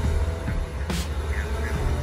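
Background music with a sharp beat about a second in, over the low, steady rumble of a Caterpillar excavator's diesel engine working at a dump truck.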